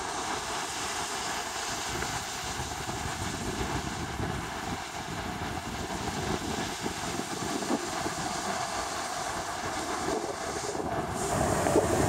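Wind blowing across the microphone with a steady rushing noise and an uneven low rumble, with the wash of sea surf behind it; it gets louder about eleven seconds in.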